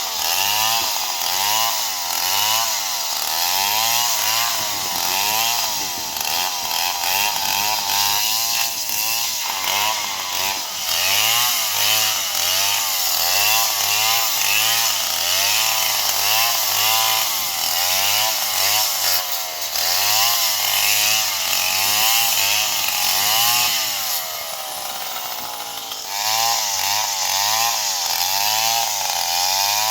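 STIHL chainsaw cutting palm wood, its engine pitch rising and falling about once a second as the throttle and load change. The engine runs a little lighter and steadier for a couple of seconds near the end.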